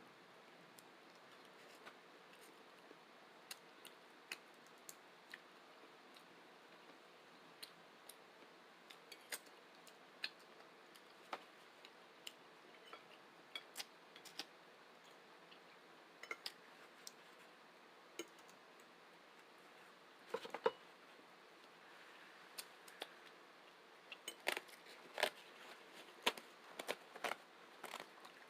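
Close-up eating noises: scattered small sharp clicks and clinks over a faint hiss, coming faster in the last third.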